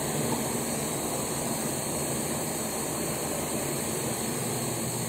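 Steady machine hum with a low drone, unchanging throughout.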